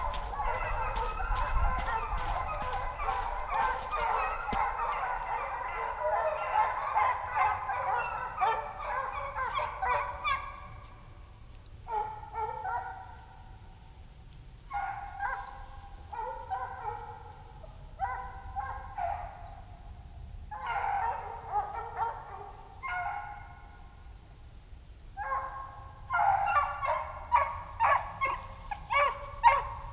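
A pack of hounds baying in full cry while running a fox: many overlapping voices at first, thinning after about ten seconds to scattered bursts of baying, then building again near the end.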